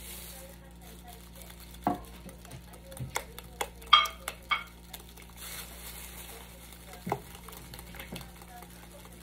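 A wire whisk beats eggs into mashed banana in a glass bowl, giving irregular clicks and clinks of metal on glass. The loudest is a ringing clink about four seconds in.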